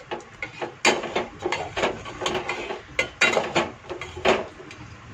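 A spoon stirring vermicelli cooking in milk in a cooking pot, knocking and scraping against the pot's side in a run of uneven clinks, the loudest about a second in, at three seconds and just past four seconds.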